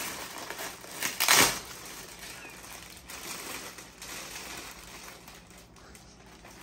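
Gift wrapping paper being torn open and crinkled by hand around a plastic-wrapped pack of diapers, with a louder burst of rustling about a second in, then quieter crackling.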